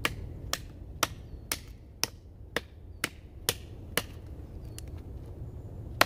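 Schrade SCHF37 knife chopping into a dead branch: sharp strikes about two a second, nine in all, stopping about four seconds in.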